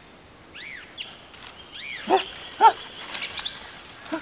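A small animal giving short arching squeals: two faint ones early, then two loud cries about two seconds in, half a second apart. Thin high bird calls come in near the end.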